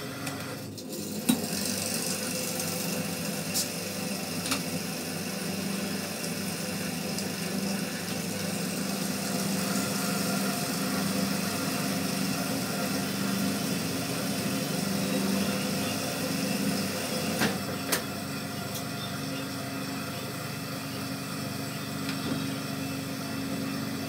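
Ceiling-fan coil winding machine running steadily with an even motor hum as it winds copper wire onto a fan stator. A few light clicks come through, one about a second in and a pair near the end.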